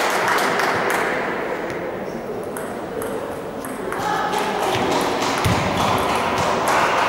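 Table tennis rally: the celluloid ball clicking sharply off bats and table in quick succession, with voices murmuring in the background.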